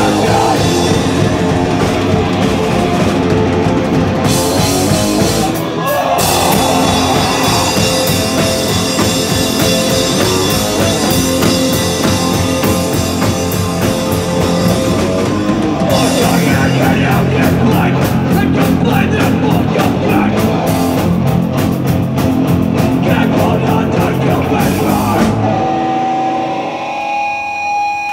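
Punk band playing live and loud: distorted guitars, bass and drums. About 26 seconds in, the drums and bass stop and only ringing guitar tones are left as the song ends.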